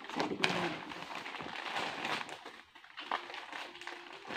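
Plastic courier mailer bag crinkling and rustling as it is handled and pulled open at its sealed top.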